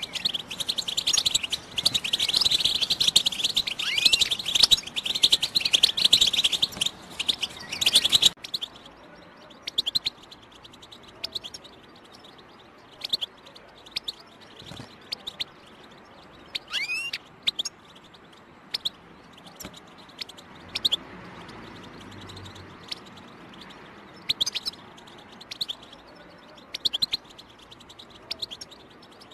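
European goldfinch singing a fast, dense twittering song that stops abruptly about eight seconds in, followed by scattered short chirps and a few rising call notes.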